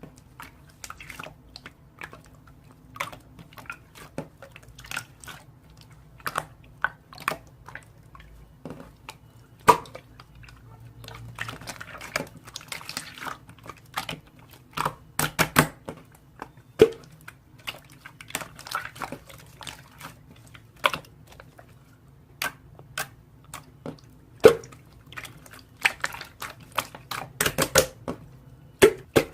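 Irregular clicks and taps at close range, some sharp and some softer, with no steady rhythm.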